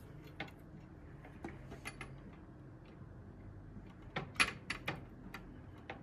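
Light clicks and taps from handling the fiberglass sections of a Diamond X510HDM antenna and their metal fittings as they are fitted together, with a quick run of sharper clicks about four to five seconds in.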